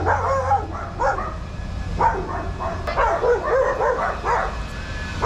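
Dogs barking and yipping, many short barks in quick succession, overlapping one another.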